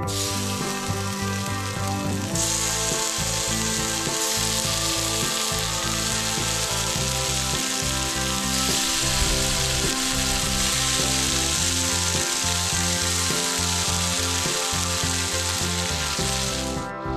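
Meat sizzling on a grill over a campfire, a steady hiss that grows louder a couple of seconds in, with background guitar music underneath.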